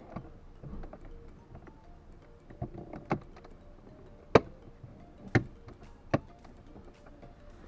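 Plastic fuse box cover on a Seat Ibiza's dashboard being fitted and snapped shut: a series of sharp clicks and knocks over a few seconds, the loudest about four and a half seconds in.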